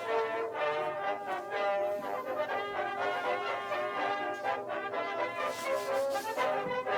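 Background music led by brass instruments, playing held notes at a steady level.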